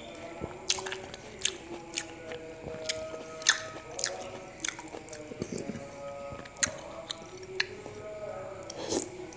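Close-up eating of peeled Hong Kong mandarin oranges coated in peanut sauce: wet, squishy chewing with sharp mouth clicks and smacks at irregular intervals, and a bite into a fresh orange near the end.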